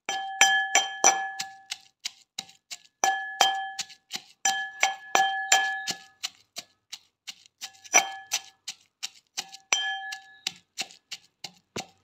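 Metal pestle pounding in a metal mortar, each stroke ringing with a clear bell-like clang as garlic, onion, curry leaves and spices are crushed. The strokes come in quick runs of several a second, with short pauses between runs.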